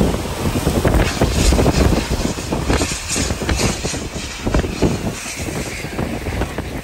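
Hurricane-force eyewall winds of Hurricane Idalia gusting hard against the microphone with wind-driven rain, a deep rumble that is loudest in the first couple of seconds: a burst of violent turbulence.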